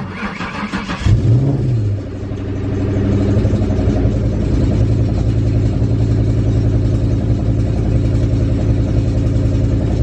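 Ford Mustang's 4.6 modular V8 cranking on the starter for about a second, catching with a brief rev flare, then settling into a steady, even idle through a Pypes exhaust. The idle is smooth after a new ignition coil was fitted to cure a misfire.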